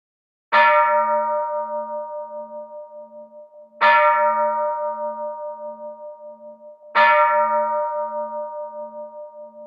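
Hindu temple bell struck three times, about three seconds apart, each strike ringing out and slowly fading, with a low hum that wavers about twice a second.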